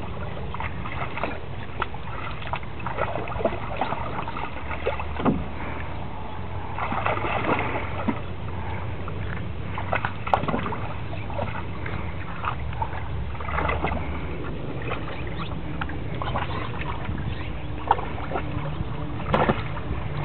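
Water splashing and sloshing in irregular bursts as animals paw and wade in shallow water after a tadpole.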